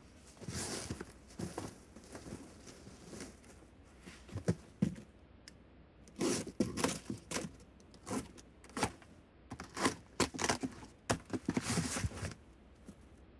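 A cardboard carton and the plastic-bagged goods inside it being handled: crinkling plastic, cardboard scraping and irregular knocks. This is the worker emptying the box into its bin.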